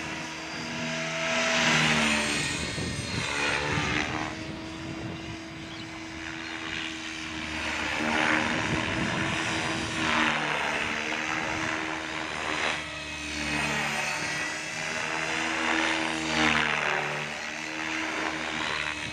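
Gaui X5 radio-controlled helicopter flying aerobatics, its 1.2 m rotor spinning at about 2,500 RPM: a steady whine under blade noise that swells and fades every few seconds as it manoeuvres.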